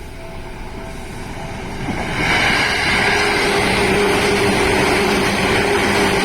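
Train passing close by: a loud rushing noise that swells about two seconds in, with a steady low hum over it.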